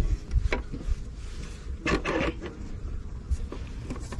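Scattered clicks and knocks of plastic fishing-box parts being handled and fitted together, with a short cluster of rattling knocks about two seconds in.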